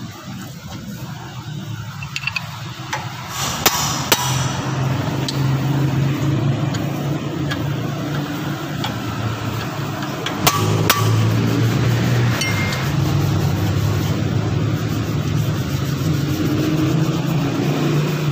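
Wrench clinking on the steel bolts of a front brake caliper: two pairs of sharp metallic clinks, about four and about ten seconds in, over a steady low mechanical hum.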